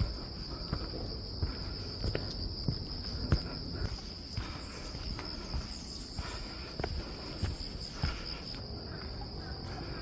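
Footsteps on a dirt trail strewn with dry leaves, walking uphill at about two steps a second, over a steady high-pitched drone of insects.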